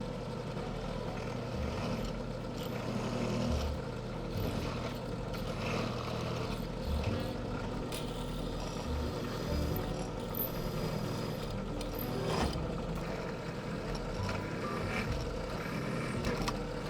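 A workshop power tool running steadily while working steel, with a low hum and scattered short clicks and knocks.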